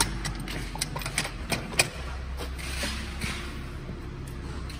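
Light metallic clicks and knocks from a steel battery module hanger being set and hooked onto Kia EV6 battery modules, about a dozen in the first two seconds and fewer after, over a steady low hum.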